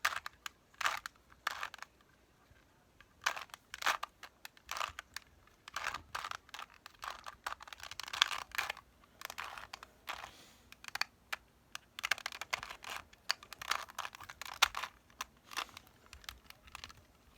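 Rubik's cube being twisted by hand: quick, irregular plastic clicks and scrapes of the layers turning, in clusters with short pauses.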